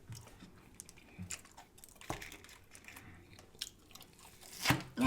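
Close-miked chewing and biting of burger and fries, with scattered short mouth clicks and a louder bite or smack near the end.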